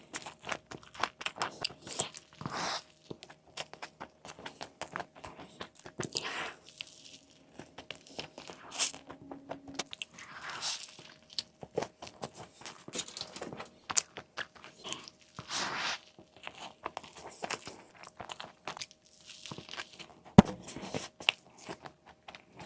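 Close-miked eating of a chicken burger: repeated bites and chewing, full of quick sharp clicks with a few louder, longer swells.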